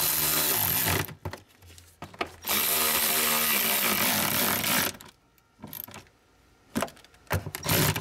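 Cordless electric ratchet running nuts down onto a module's mounting studs in two runs, about a second at the start and about two and a half seconds in the middle, its motor whining steadily. A few light clicks and knocks near the end.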